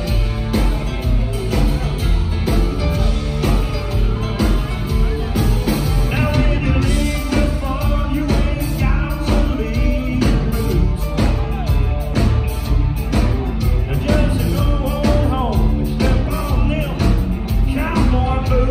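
Live country band playing a song, with a lead vocal over drums and guitars.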